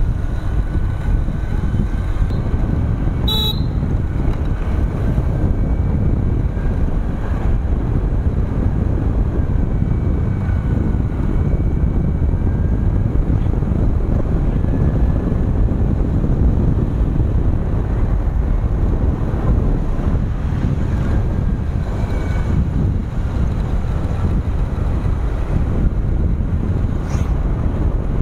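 Steady wind rush and rumble on the microphone of a moving motorcycle, with engine and road noise underneath. A sharp click sounds about three seconds in.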